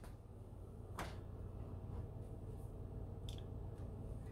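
Quiet kitchen room tone: a steady low hum, with a faint click about a second in and a brief faint high tick past three seconds.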